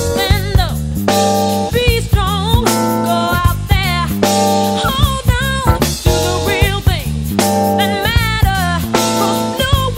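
Music: a song with a singing voice, guitar and drums keeping a steady beat.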